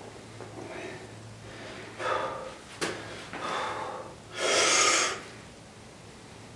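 A man breathing hard while straining to bend a steel horseshoe: a couple of forceful breaths about two seconds in, a brief sharp click, and a longer hard exhale about four and a half seconds in, the loudest of them.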